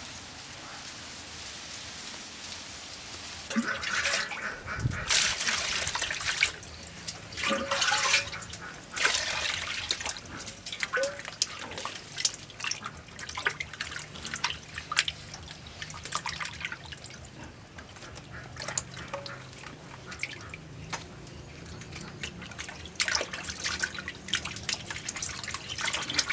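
Water splashing and dripping in a plastic basin as hands wash raw beef tripe and other offal. The sloshes come irregularly, busiest from about four to eleven seconds in and again near the end.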